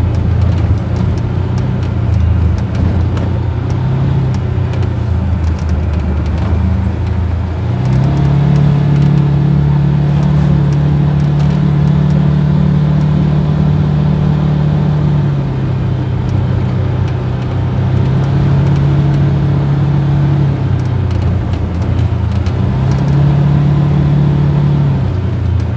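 Motorcycle engine running under way, its note stepping up about a third of the way in, dropping back about halfway through, and rising briefly again near the end as the speed changes.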